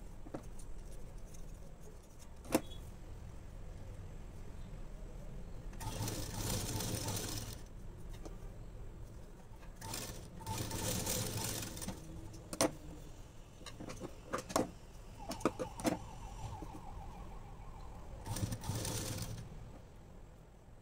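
Household sewing machine stitching blouse fabric in three short runs, about 6, 10 and 18 seconds in, with sharp clicks of the machine and fabric handling between runs.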